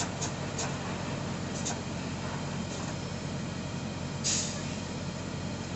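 Semi-truck diesel engine idling steadily, with a few light clicks in the first two seconds and a short hiss of air about four seconds in.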